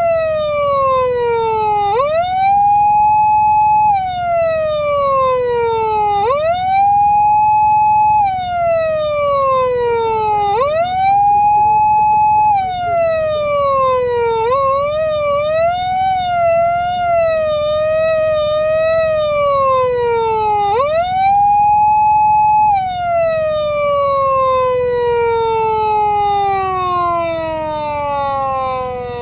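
PATLITE SAP500 electronic siren amplifier sounding the Japanese police-car wail through its speaker. The pitch sweeps up quickly, holds, then slides slowly down, repeating about every four seconds; midway the pitch wavers up and down for a few seconds, and near the end it makes one long slow fall.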